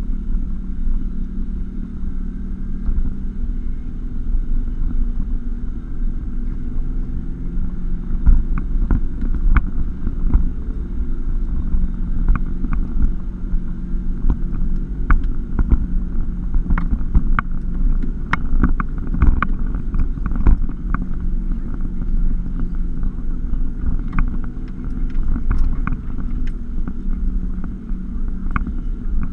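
2016 Toyota Tacoma driving slowly up a rough gravel trail, heard from inside the cab: a steady engine hum and low road rumble, with many sharp clicks and knocks over the rough ground, thickest through the middle.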